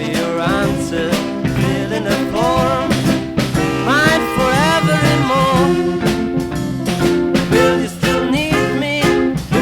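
A 1960s beat band playing a song, with a voice or saxophone melody over sustained organ chords, guitar, bass guitar and drums.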